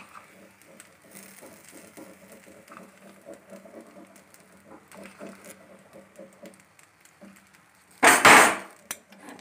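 Faint, soft sounds as chopped vegetables are scattered over an egg dosa on a nonstick tawa, then one loud, brief noise about eight seconds in.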